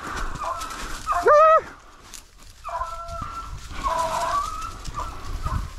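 Beagles baying on a rabbit's trail: a handful of short calls, the loudest about a second in, rising, held briefly and falling away, then several quieter ones.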